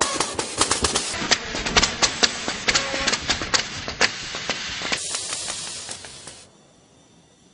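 Pyrotechnic charges going off on a battle set: a dense, rapid crackle of sharp pops over a hiss, like a long string of firecrackers. It stops abruptly about six and a half seconds in.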